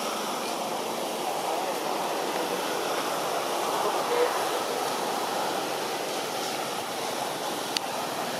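Steady outdoor background din, a continuous rushing noise with no clear single source, with a brief faint tone about four seconds in and a sharp click near the end.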